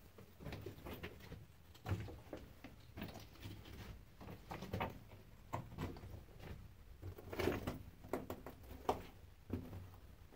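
Footsteps crunching and scuffing over loose rock and gravel on the floor of a narrow mine tunnel, in an irregular series of short steps.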